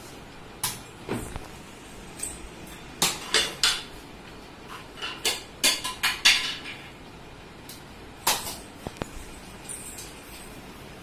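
About a dozen sharp plastic clicks and knocks at irregular intervals, clustered in the middle: a Nerf N-Strike NanoFire single-shot dart blaster being handled, loaded and fired, with darts striking things.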